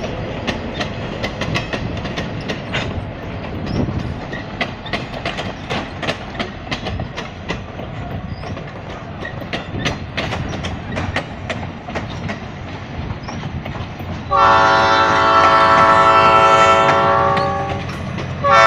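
Diesel-hauled passenger train rolling past, with a low rumble and irregular wheel clicks over the rails. About 14 seconds in, the locomotive's air horn sounds one long blast lasting about three and a half seconds, and a second blast starts right at the end.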